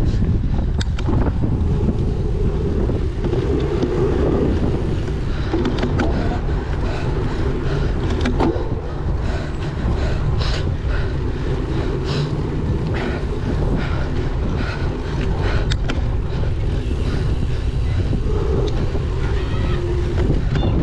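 Strong wind rumbling on the microphone, with scattered sharp clicks and rattles from the cyclocross bike running over a dry course.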